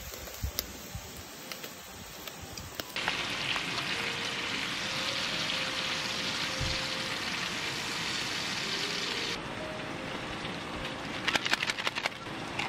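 Meat sizzling on a hot grill pan: a steady hiss that starts abruptly about three seconds in and stops about nine seconds in. The stretches before and after are quieter, with a few sharp clicks near the end.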